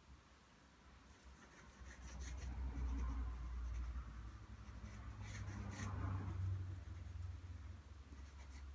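Pencil shading on drawing paper: scratchy back-and-forth strokes that start about two seconds in and keep going, with a few sharper scratches along the way.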